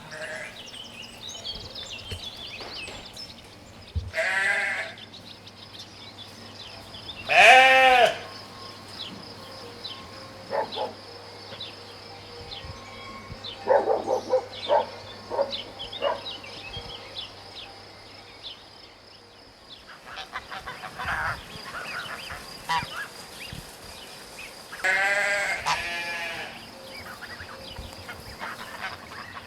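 Sheep bleating several times with gaps between, the loudest bleat about eight seconds in.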